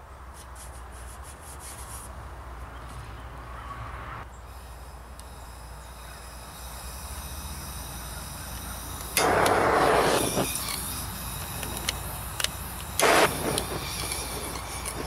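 Hand-held propane torch on a blue cylinder: gas hissing from the nozzle, then two loud whooshes, about nine and thirteen seconds in, as the flame lights. The flame then burns steadily.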